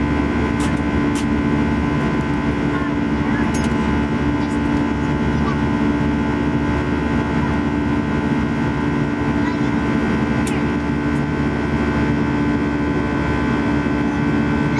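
Steady cabin drone of an Airbus A320 in flight: the jet engines and rushing air making an even roar with a constant low hum.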